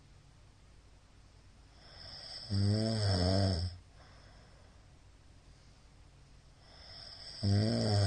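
A middle-aged man snoring loudly in his sleep: two long, low snores about five seconds apart, each building up from a breath, the second running on past the end.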